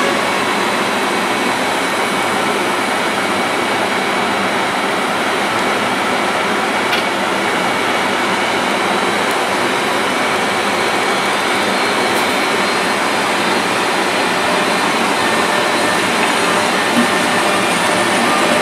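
GB Railfreight Class 73 locomotive 73965 hauling a Network Rail test train slowly past, a loud, steady whooshing running noise without breaks.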